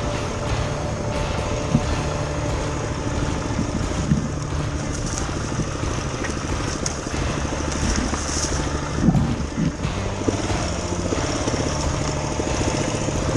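Dirt bike engine running at low speed while the bike picks its way through thick brush, with a few sharp knocks along the way, the loudest about nine seconds in.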